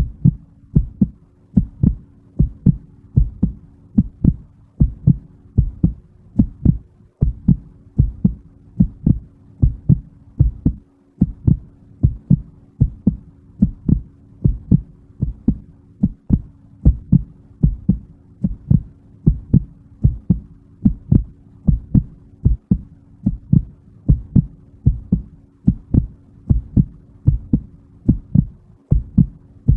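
Heartbeat: low thumps in pairs (lub-dub) repeating evenly, a little over once a second, with a faint steady hum underneath.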